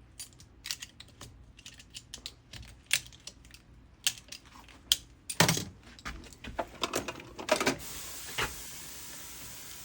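Irregular clicks, taps and scrapes of a tool working at a Jeep TJ Wrangler interior door latch, picking at the broken plastic jammed inside it. About eight seconds in, a steady hiss begins.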